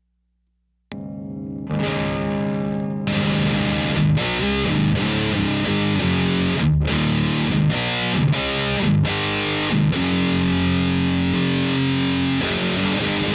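Electric guitar played through a thiSHEAvyearth Grim distortion pedal into a clean amp. A chord rings out about a second in, then a heavy distorted riff with several short stops starts about three seconds in.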